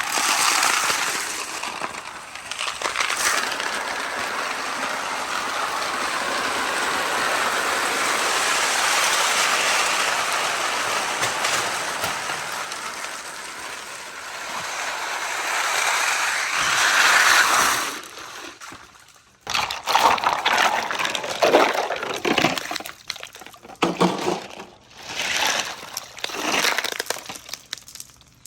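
A mass of glass marbles rolling and clattering down a wooden marble run in a dense, continuous rush. After about 18 seconds it breaks up into separate bursts of clattering.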